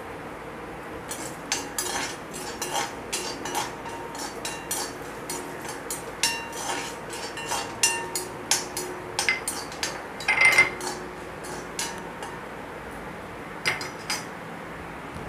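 Perforated steel ladle scraping and clinking against an iron kadai, stirring coriander seeds, cumin and chana dal as they dry-roast. An irregular run of clicks and scrapes, loudest about ten seconds in.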